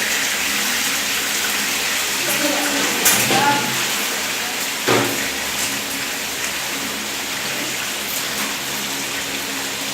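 Fish frying in hot oil in a pan, a steady sizzle after the heat has been turned down, with two sharp utensil clicks about three and five seconds in.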